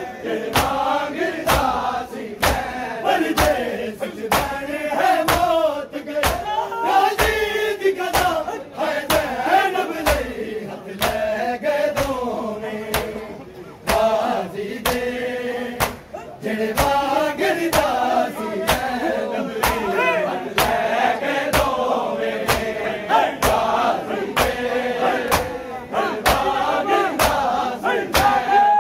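A crowd of men doing matam: open hands slapping bare chests in unison, about two sharp slaps a second, under men's voices chanting a noha.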